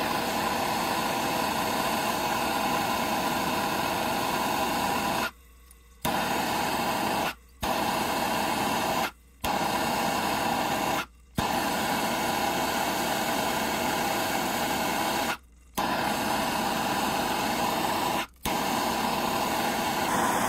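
Propane torch flame hissing steadily as it heats a brass ball valve's solder joint on copper pipe, played at double speed. The hiss cuts out abruptly for a fraction of a second six times along the way.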